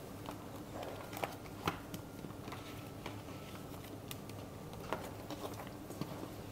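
Paper pages of a disc-bound planner being flipped and turned by hand, with a few sharp clicks and taps, over a steady low hum.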